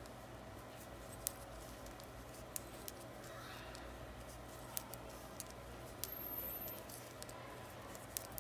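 Metal knitting needles giving light, irregular clicks as a row of knit stitches is worked, over a faint steady hum.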